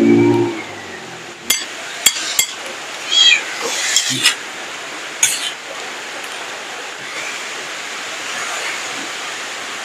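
A cat meowing, with a short low hum at the start and a few sharp clinks of a spoon on a plate. A steady rain hiss runs underneath.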